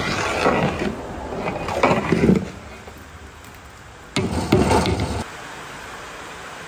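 A long metal ladle stirring a thick, milky yellow sweet mixture in a large aluminium cooking pot, scraping and sloshing in two bursts, the second about four seconds in. After that only a steady hiss is left.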